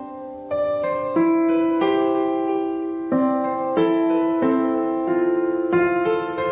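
Background music: a gentle piano melody played slowly, a new note roughly every two-thirds of a second.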